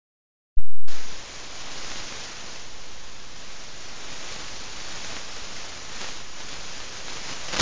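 Steady hiss of static from an analog FPV video link's recorded audio, starting with a short loud pop about half a second in.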